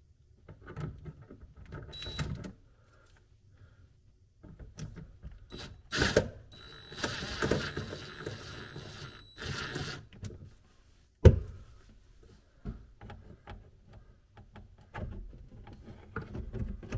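Hand-tool and handling noises as a hose clamp is loosened and a plastic dishwasher drain hose is worked off its connector under a sink: scattered clicks and scrapes, a few seconds of rough scraping in the middle, and one sharp knock about eleven seconds in.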